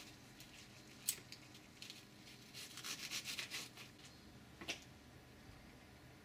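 Kitchen knife chopping red onion on a plastic chopping board: a quick run of cuts about two and a half to three and a half seconds in, with single sharp knocks about a second in and about four and a half seconds in.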